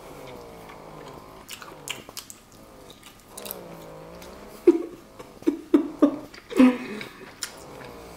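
A person chewing slices of roast turkey with wet mouth clicks and lip smacks, most of them from about halfway through. Between them come long, gliding hummed 'mmm' sounds.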